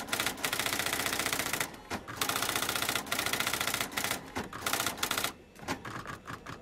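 Rapid typewriter keystrokes, a sound effect matched to on-screen text typing out letter by letter. The clatter runs densely with a couple of brief pauses, then thins to a few scattered keystrokes after about five seconds.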